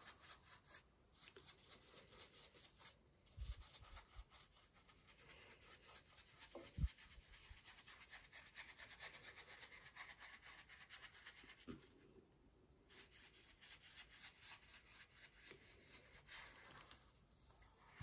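Faint scratching and rubbing of a large watercolour brush scrubbing over textured watercolour paper, with a few soft knocks, the clearest about 7 seconds in.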